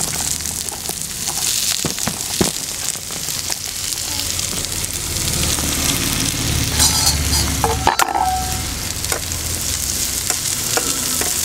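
Sliced onions frying in hot oil with garlic and ginger, sizzling steadily while being stirred until they soften, with a few short clicks along the way.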